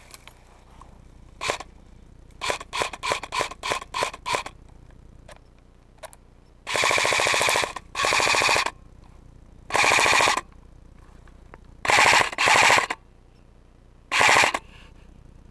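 Airsoft rifle firing: a shot, then a quick string of single shots, then six short full-auto bursts of rapid fire, each lasting under a second.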